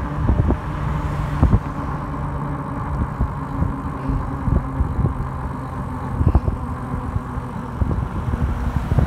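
E-bike riding on power assist over a concrete street: a steady motor hum with wind and road noise, and irregular knocks and rattles as the bike rolls over bumps.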